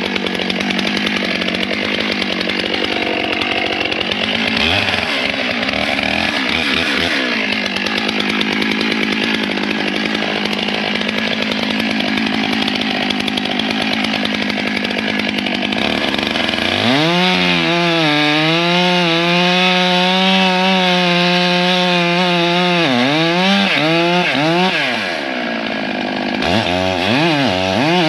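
Stihl 661 two-stroke chainsaw running at high throttle, cutting into a tree trunk on the back cut. Partway through, its engine note turns clear and steady, then dips and rises several times near the end as the throttle is eased and opened.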